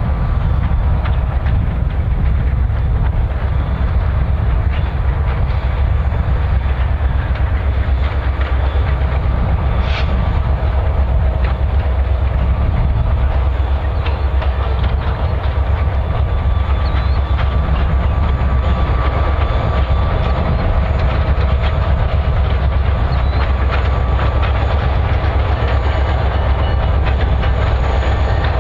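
Turbocharged EMD diesel engine of an SD40-2 locomotive working hard as it pulls a loaded grain train: a steady, deep rumble with a faint steady whine above it.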